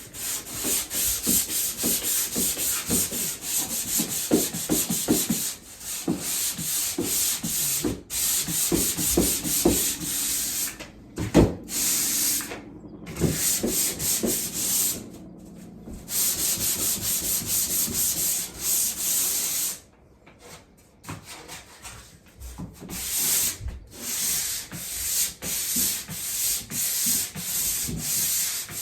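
Coarse 100-grit sandpaper scrubbed back and forth over cured drywall joint compound in quick rasping strokes, with a few short pauses. A single knock comes about eleven seconds in.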